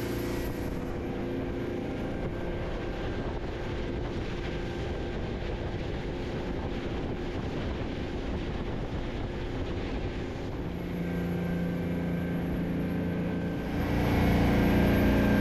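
Boat engine running underway, with a steady rush of wind and water. A low engine hum comes up about two-thirds of the way through, and the sound gets louder near the end.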